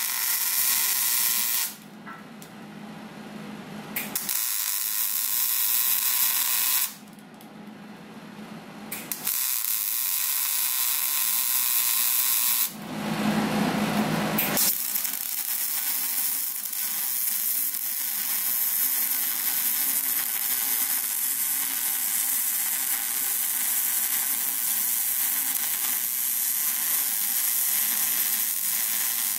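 MIG welding arc hissing and crackling as it tacks square steel tubing to a steel plate: several short runs of two to three seconds with pauses between them, then one continuous bead of about fifteen seconds that stops abruptly near the end.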